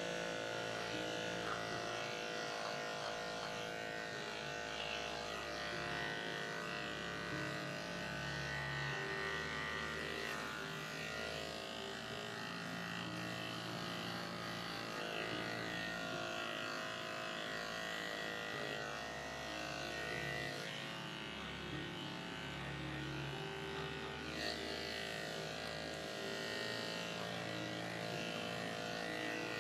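Electric dog grooming clippers with a #10 blade running steadily, shaving through a matted dog coat.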